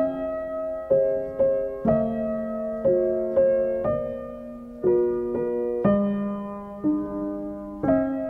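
Background piano music: slow, gentle notes and chords struck about once a second, each ringing and fading before the next.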